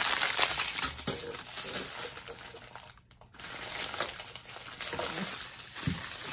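Small plastic zip-lock bags of diamond-painting drills crinkling as they are handled, with a brief pause about halfway through.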